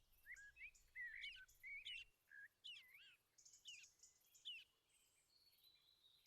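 Songbirds singing faintly in short, varied whistled phrases, which die away about four and a half seconds in.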